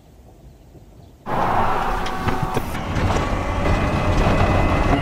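Vehicle noise cutting in abruptly about a second in after a quiet start: a loud steady rush with a thin high whine running through it.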